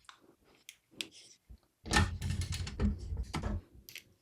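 Scattered clicks, taps and knocks of a mini-ITX motherboard and cables being worked into a small-form-factor PC case, with a busier run of knocking and rattling about two seconds in.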